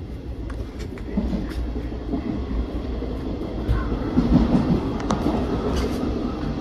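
Running noise heard inside a Casaralta double-deck passenger coach in motion: a steady low rumble of wheels on rail, with scattered light clicks and knocks. It grows a little louder about two thirds of the way through.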